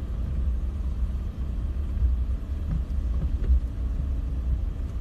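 A car's engine and tyres giving a steady low rumble, heard from inside the cabin as the car crawls slowly along a rough road.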